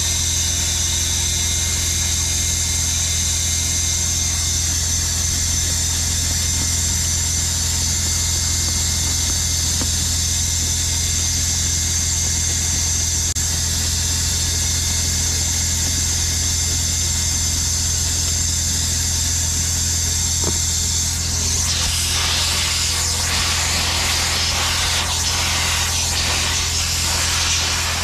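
Carpet extractor's vacuum motor running with a steady hum and whine. About three quarters of the way through, the extractor wand starts spraying and sucking up water off the rubber floor, adding a loud hiss.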